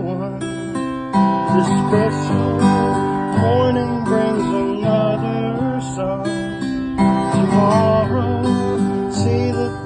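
Instrumental passage of a slow song: acoustic guitar strummed in steady chords, with a melody line above that glides up and down in pitch.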